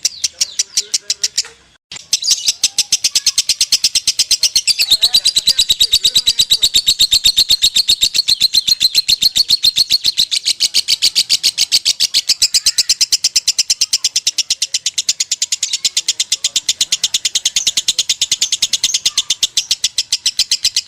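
Lovebird singing a long 'konslet' ngekek: a rapid, unbroken string of high chirps repeated at an even pace. There is one short break about two seconds in.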